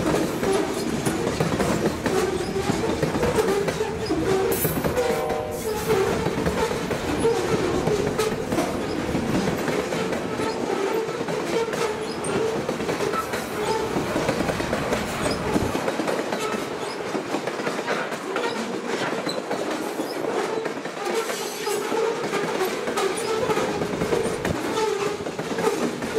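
Covered hopper cars of a freight train rolling past at track level: a continuous rumble of steel wheels on rail with repeated clickety-clack, over a steady tone from the wheels.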